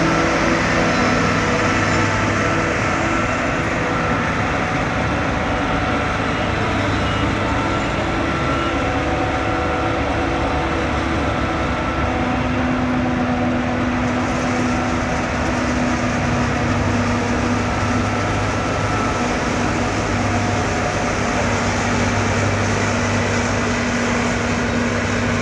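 Claas Jaguar 870 forage harvester chopping maize, with the tractor and trailer running alongside: a steady machine drone carrying a few held tones, one of which shifts about halfway through.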